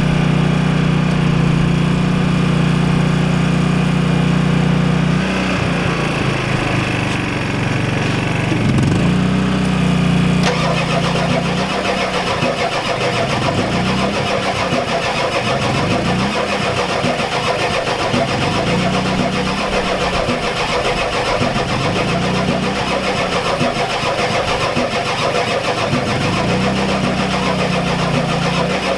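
The 7.3L IDI V8 diesel in a 1993 Ford F-250 is running. For about five seconds it holds a steady low drone. From about ten seconds in, its note dips and recovers roughly every two seconds, the struggle the owner blames on a weak injection pump.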